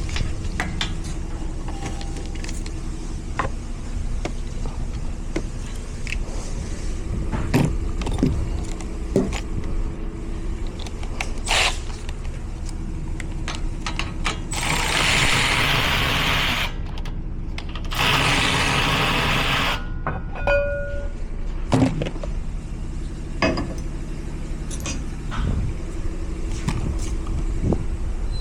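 A car running, with scattered clicks and rattles and two loud rushing bursts of about two seconds each past the middle; no clear, sustained brake squeal stands out.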